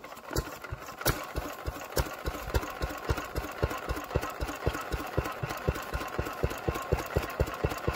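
Vintage single-cylinder stationary engine running with a steady, even exhaust beat, about five to six firings a second.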